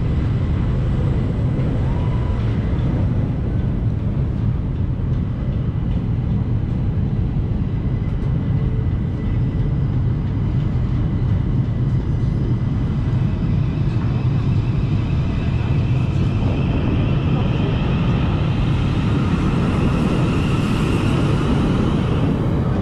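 Steady outdoor city noise: a continuous low rumble of traffic and street sound, with no single event standing out.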